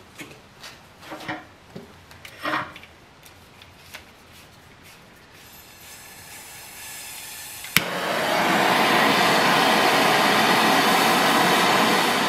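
A few light metal clinks from parts handled on the workbench, then a handheld propane torch: a faint gas hiss, a sharp click as it lights about eight seconds in, and the flame burning with a loud, steady rushing hiss.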